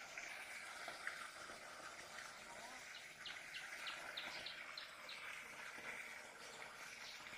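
Faint outdoor ambience: a steady high-pitched buzz, with a quick run of short chirps, about three a second, between about three and five seconds in.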